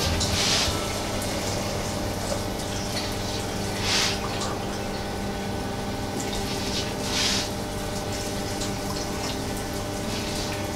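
Water poured from a glass into a pot of simmering meat sauce: four short splashing pours, about three seconds apart.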